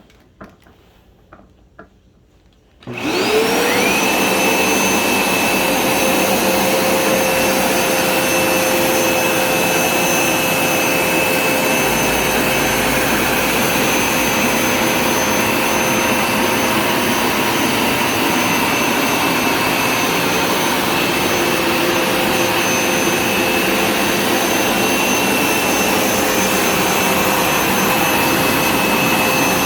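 Hoover Smartwash Pet Complete carpet cleaner switched on about three seconds in, its motor whining up to speed, then running steadily with a high whine over a rush of air.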